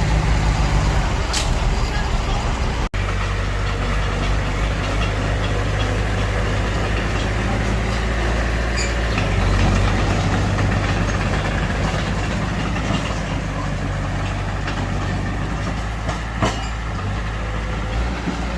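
Mitsubishi BD2F bulldozer's diesel engine running steadily, with a few light knocks. The sound drops out for an instant about three seconds in.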